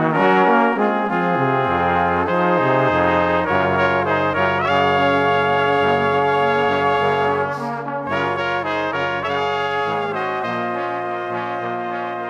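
Background music of held chords that change every second or two, slowly fading near the end.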